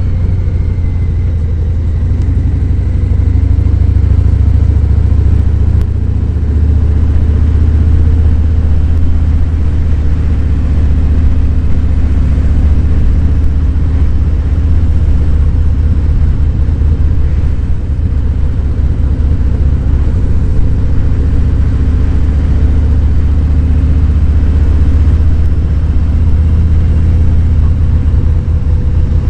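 Harley-Davidson Fat Boy 107's Milwaukee-Eight V-twin engine running steadily while riding, a low rumble.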